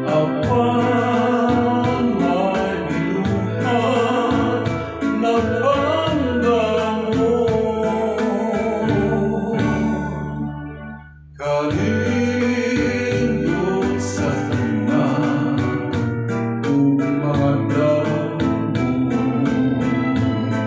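A man singing into a handheld microphone over a backing track of organ-like keyboard chords with a steady beat. About ten seconds in the music thins and nearly stops, then comes back abruptly about a second later.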